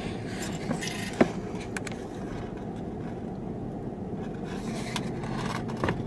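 Steady low hum of a car idling, heard from inside the cabin, with a few sharp clicks and rubbing noises as a handheld camera is moved about against the window.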